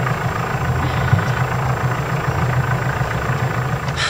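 Sailboat's inboard diesel engine running steadily with a low hum, heard from the cockpit; it cuts off abruptly near the end.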